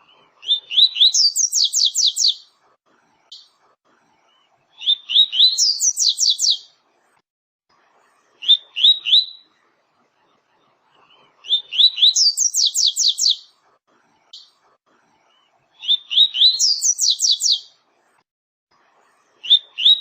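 Double-collared seedeater (papa-capim, coleiro) singing its 'tui-tui' song, a phrase every three or four seconds. Each phrase is a few clear rising notes followed by a fast run of higher notes. Twice, about a third of the way in and near the end, the phrase stops after the opening notes.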